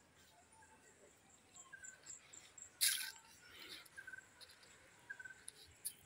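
Faint outdoor chirping of insects and birds: a short chirp repeated every half second to a second over a faint, regular high-pitched insect pulse. A brief scuffing noise comes about three seconds in.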